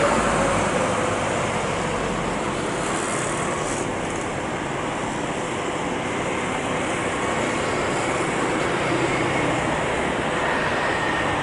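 Steady jet engine noise from a Boeing 737-800's two CFM56-7B engines as the airliner rolls out along the runway after landing.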